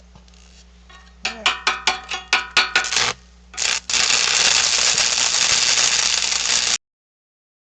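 Rapid scraping strokes on steel, about five a second, then a loud, steady welding-arc hiss of about three seconds that cuts off suddenly.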